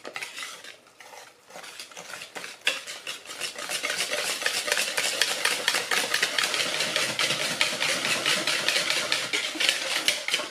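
Wire balloon whisk beating thick pancake batter by hand in a plastic bowl: quick, rhythmic scraping strokes, light at first, then louder and faster from about three seconds in.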